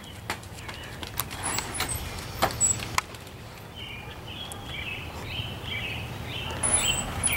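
Several sharp footsteps and taps in the first three seconds, then small birds chirping repeatedly over a steady low outdoor rumble.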